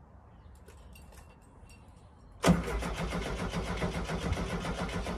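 The 1970 VW Type 2 bay-window's 1641cc air-cooled flat-four being cranked on the starter motor after about six months unused. It kicks in suddenly about halfway through with an even chug of about eight beats a second, turning over without catching.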